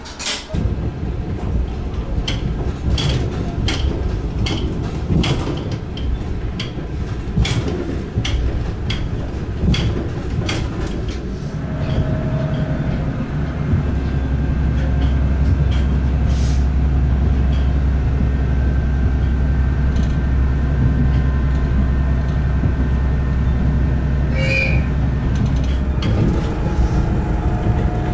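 Diesel railcar running along the track, heard from inside: sharp clicks from the wheels and rails over the first ten seconds or so, then a steady low engine drone sets in and grows louder about fourteen seconds in as the railcar runs under power.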